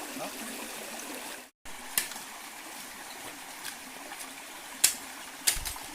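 Steady rush of a stream by a waterfall, with a brief dropout about one and a half seconds in, then a few scattered sharp clicks, the loudest near the end.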